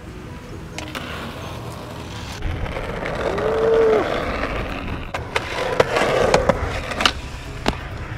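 Skateboard wheels rolling on asphalt, the rolling noise building up, with a brief hooting tone about three and a half seconds in. In the second half, several sharp clacks of the board.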